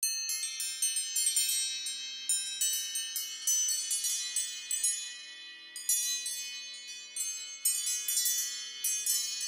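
A phone ringtone of high chiming notes struck in quick, uneven succession, each ringing on beneath the next.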